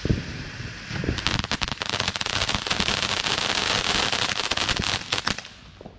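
RGS Summer Sparkle cone fountain firework spraying sparks, with a sharp pop right at the start. About a second in it swells into a loud rushing hiss with many crackles, then dies away near the end.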